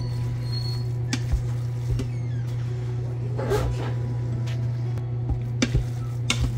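Plastic meat masher scraping and clicking against the stainless steel inner pot of an Instant Pot as raw ground beef is broken up, with a few sharp knocks and a longer scrape a little past the middle. A steady low hum runs underneath.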